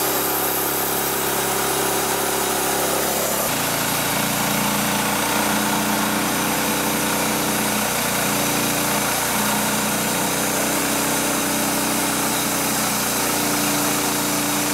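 Portable sawmill's engine running steadily at speed as the mill cuts through a log. Its note shifts about three and a half seconds in.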